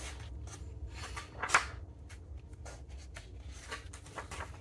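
Paper pages of a book rustling as they are handled and turned: several short swishes, the loudest about a second and a half in, over a steady low hum.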